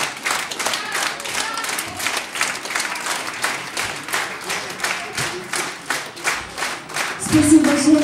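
Audience applauding, clapping together in a steady rhythm of about three claps a second. Near the end a woman's voice starts over the microphone.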